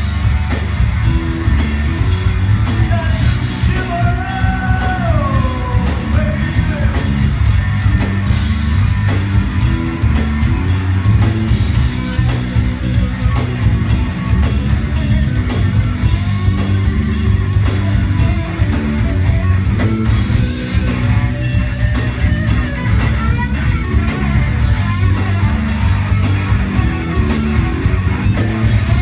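Live rock trio playing loudly: electric guitar, bass guitar and drum kit.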